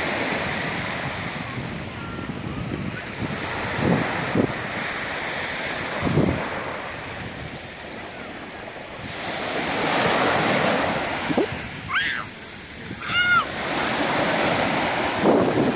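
Small surf breaking and washing up a sandy beach, the wash swelling and fading every few seconds, with wind buffeting the microphone. Two short high cries come near the end.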